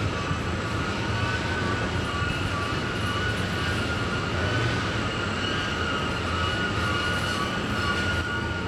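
Loaded Norfolk Southern coal train rolling steadily past: a continuous rumble of the cars with a few steady high-pitched tones over it.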